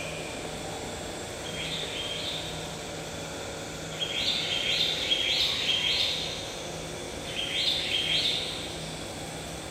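Bird chirping in short bursts of high notes: a few about one and a half seconds in, a run of about five between four and six seconds, and two more near eight seconds, over a steady low hum.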